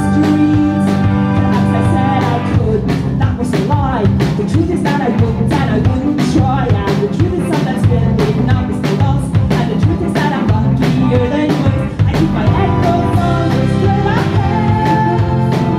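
A live band playing: drum kit with kick, snare and cymbals, electric bass, electric guitar and keyboard, with singing through much of it.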